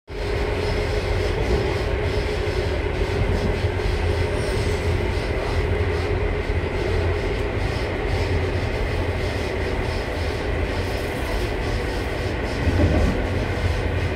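Running noise of the ETR 252 'Arlecchino' electric trainset heard inside its panoramic lounge car: a steady rumble of wheels on rails with a steady hum, briefly a little louder about thirteen seconds in.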